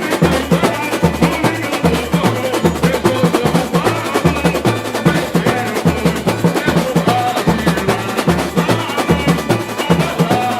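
Samba percussion music: a steady beat of deep bass drum strokes, about two a second, under busy drums and other instruments.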